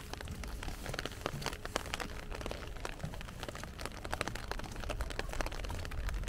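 Heavy rain falling close by, a dense, irregular patter of sharp drop taps over a low rumble.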